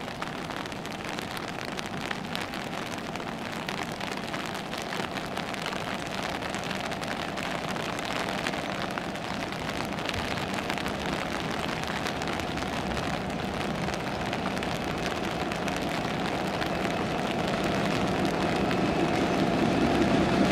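Steady hiss of rain falling, with an approaching Irish Rail 201 class diesel locomotive growing slowly louder underneath it. The locomotive's engine drone builds up plainly near the end.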